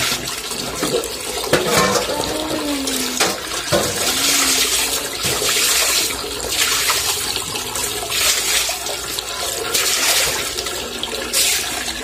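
Water running hard from a wall pipe and splashing onto a concrete floor while a plastic basin is rinsed and tipped out.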